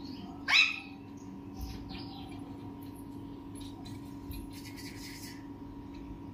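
Young rose-ringed parakeet giving one short, loud chirping call about half a second in, then only faint scattered sounds over a steady low hum.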